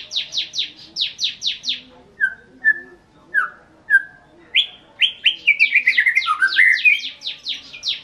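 White-rumped shama (murai batu) singing: a fast run of sharp downward-sweeping notes, about five a second, then four short separate whistles, then a quick tumbling phrase of rapid notes.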